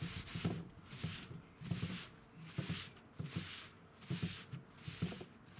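A cloth wiped back and forth over a wooden tabletop freshly cleaned with mineral spirits, a soft swishing rub in repeated strokes, roughly one and a half a second.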